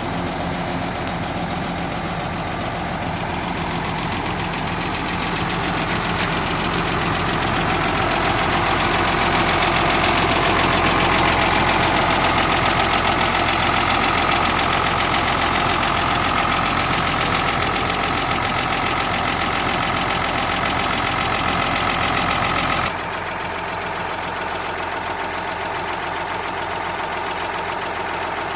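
Classic tour bus's diesel engine running with a steady clatter. It swells louder for a while, with a thin high whine through the middle stretch, then drops back suddenly near the end.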